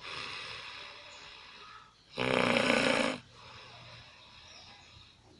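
A person snoring: one loud snore about two seconds in that lasts about a second, with softer breathing before and after it.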